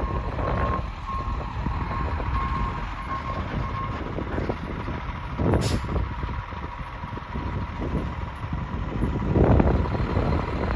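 Vehicle backup alarm beeping in an even on-off rhythm, stopping about four and a half seconds in, over wind buffeting the microphone. A short hiss comes about halfway through.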